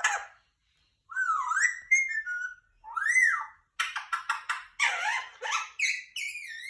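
Indian ringneck parakeet calling: gliding, whistled calls about a second in, then a quick run of short, harsh squawks from about four seconds in.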